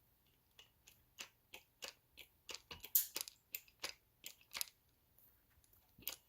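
Hand hydraulic crimping tool being worked and handled as its dies are closed lightly onto a battery-cable terminal: a run of irregular sharp clicks and ticks, loudest about three seconds in.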